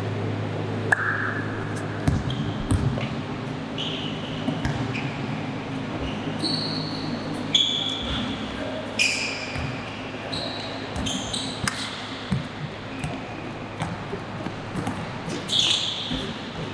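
Basketball game play: a basketball bouncing in sharp thuds at irregular intervals, with sneakers squeaking in short, high chirps on the court. A low steady hum underneath stops about halfway through.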